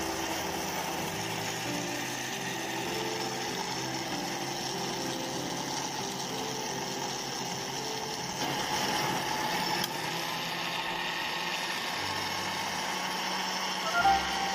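Electric blender motor running steadily, its blade puréeing strawberries with water into juice. It gets a little louder for a second or so about two-thirds of the way through.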